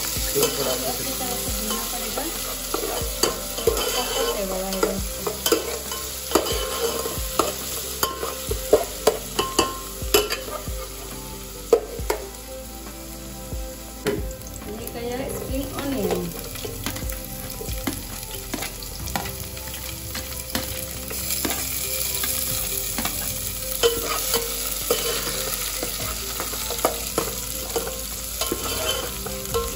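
Sliced onions and ginger-garlic paste frying in mustard oil in an aluminium pot, sizzling steadily, while a steel ladle scrapes and clinks against the pot as it stirs. The stirring stops for several seconds in the middle, leaving the sizzle quieter, and starts again near the end.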